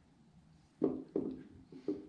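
A few short dull knocks, three within about a second, as an aluminum cylinder head is worked against the engine block and onto its locating dowels.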